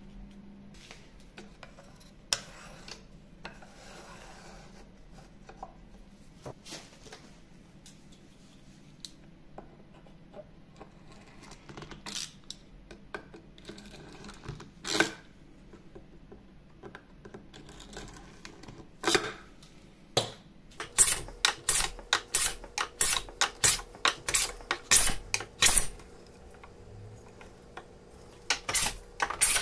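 Wooden-bodied plane taking shavings off a thin yellow boxing strip in a quick run of short, sharp strokes, about two a second, after quieter handling of wood with a few single knocks and clicks.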